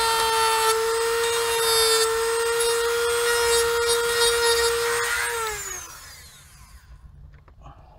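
Dremel rotary tool running at a steady high whine while cutting away plastic steering-wheel trim, then switched off about five seconds in, its pitch falling as it spins down.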